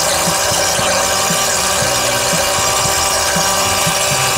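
Hand pump extracting old fluid from a semi truck's power steering reservoir, worked in an even rhythm of about two strokes a second, under a loud steady mechanical running noise.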